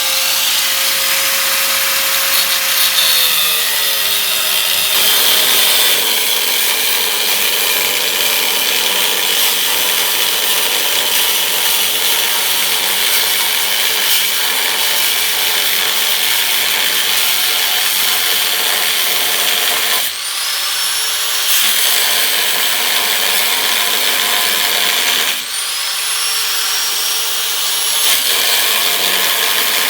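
A power cutting tool runs continuously through rusted steel of a truck frame. It briefly lets off twice, about 20 and 25 seconds in, and each time spins back up with a rising high whine.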